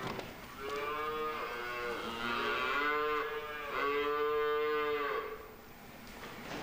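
Young calves bawling in a barn pen: three long, fairly high calls one after another, the last about five seconds in.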